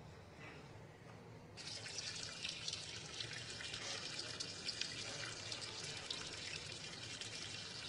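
A tap running into a washbasin, starting about a second and a half in and then running on steadily, with small splashes.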